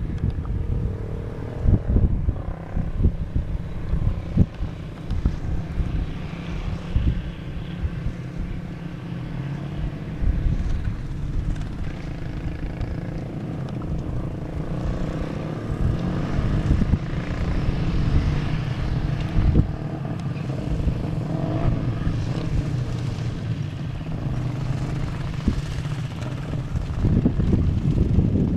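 Enduro motorcycle engine running steadily while riding, its pitch drifting a little with speed, with wind buffeting the microphone.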